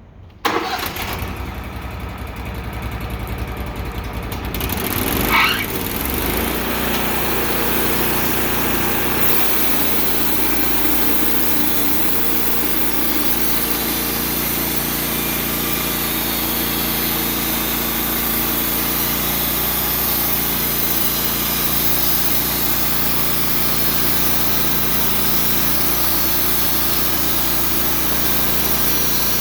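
A band sawmill's motor starting suddenly about half a second in and rising in pitch around five seconds in, then running steadily and loudly as the blade cuts through a cedar log.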